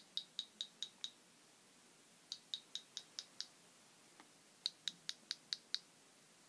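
Velleman MK104 electronic cricket kit chirping through its piezo sounder: three bursts of six short, high chirps, about five a second, with the bursts repeating roughly every two and a half seconds.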